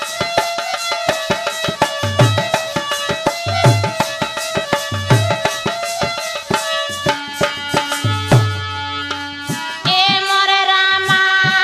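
Sohar folk song accompaniment: quick hand-drum strokes with a deep bass stroke about every second and a half, under held melodic notes. About ten seconds in, a woman starts singing over the music.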